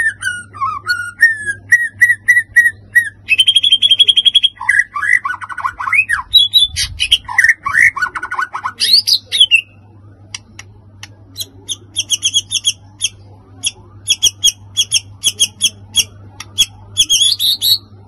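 White-rumped shama singing a varied song. The first half is loud whistled phrases that slide up and down. The second half is fast runs of short, sharp chipping notes.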